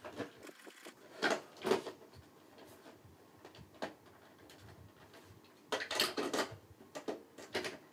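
Plastic clicking and scraping as a rebuilt battery pack is slid into an APC Back-UPS XS battery bay and the battery cover is pressed shut: two sharp clicks about a second and a half in, then a cluster of knocks and rustles near the end.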